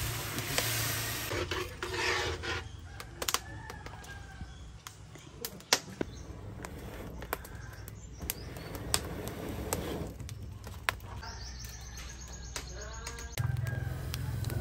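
Water poured from a kettle into a hot wok of chicken, hissing briefly at the start. Then a wood fire under the wok crackles with scattered sharp pops, with birds chirping faintly, and a low hum comes in near the end.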